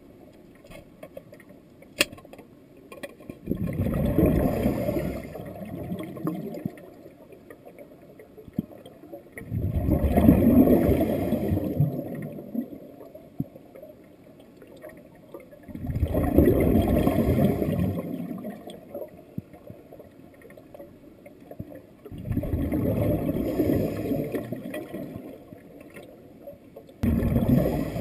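Scuba diver breathing through a regulator, heard underwater: four loud gurgling rushes of exhaled bubbles about every six seconds, with quieter gaps between them, and a fifth starting near the end.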